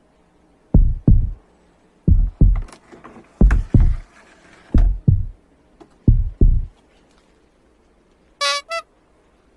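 Five evenly spaced pairs of deep thumps, like a slow heartbeat, then two short, high mews from a kitten near the end.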